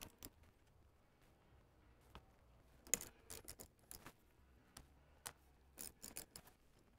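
Faint, scattered clicks of a small ratchet wrench loosening the bolts that hold a tractor's fuel sender unit to the tank, with runs of clicking about three seconds in and again near six seconds.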